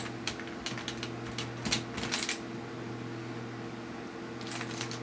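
Light, sharp clicks and ticks of a small screwdriver driving tiny screws into the side of a laptop LCD screen's mounting bracket, in three short clusters, over a steady low hum.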